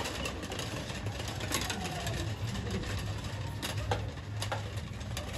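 A row of large metal prayer wheels being spun by hand one after another, rumbling steadily on their spindles with a few sharp knocks.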